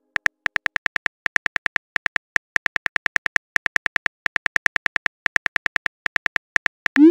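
Chat-app typing sound effect: rapid, irregular short clicks, about five or six a second, one per typed character, ending near the end in a short rising blip as the message is sent.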